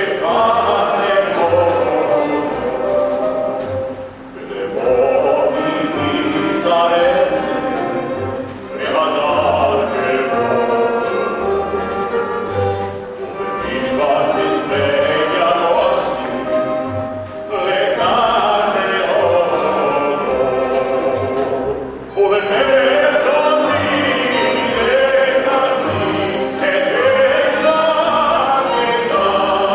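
Several voices singing together in long sustained phrases, with brief breaths between phrases every few seconds.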